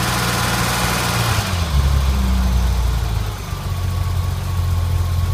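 BMW E30 engine held at raised revs with a high hissing noise over it, then falling back to idle about a second and a half in. The hiss stops as the revs drop, and the engine idles steadily. This is the noise that appears only when revving.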